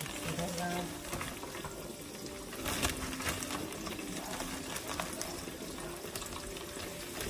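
Floured fish frying in hot oil in a cast iron skillet: a steady sizzle with small crackles, and one louder crackle about three seconds in. A plastic zip-top bag rustles as it is handled.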